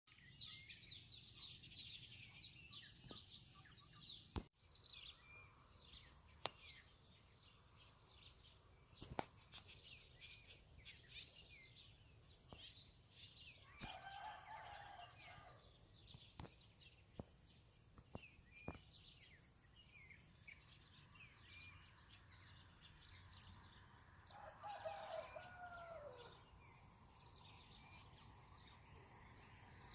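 A rooster crowing faintly twice, once midway and again near the end, the second call falling in pitch. Small birds chirp throughout over a steady high whine, with a few sharp clicks.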